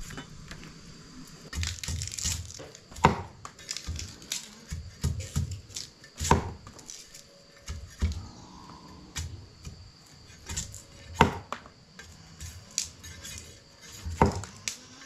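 Knife blades splitting and chopping bamboo-like stalks into thin sticks: sharp irregular cracks and tearing splits of fibre, the loudest cracks coming every few seconds with lighter knocks and ticks between.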